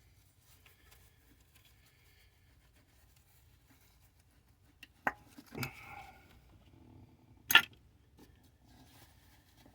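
Spark plug boots being pulled off an engine: mostly quiet, with a sharp click about five seconds in, a short scraping sound just after, and a louder sharp snap about two and a half seconds later.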